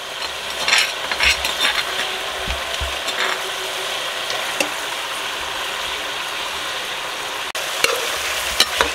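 Beef heart and kidney pieces with garlic-ginger paste sizzling in hot ghee in a steel pot. A metal ladle stirs, clicking and scraping against the pot in the first few seconds and again near the end.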